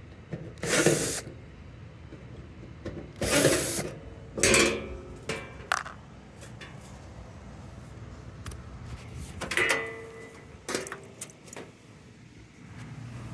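Fasteners being undone on a washing machine during a teardown: several short bursts of tool noise, with scattered metallic clicks and clanks between them.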